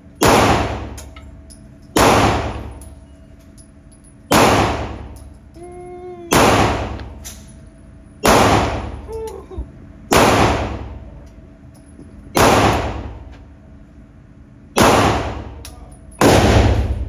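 Nine gunshots fired one at a time, roughly two seconds apart, each followed by a ringing echo off the range walls.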